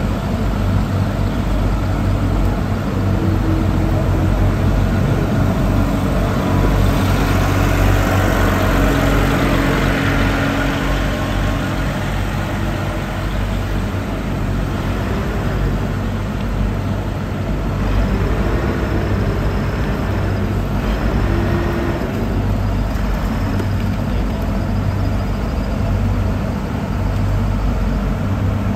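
An engine idling steadily with a low hum. A faint high whine comes and goes in the second half.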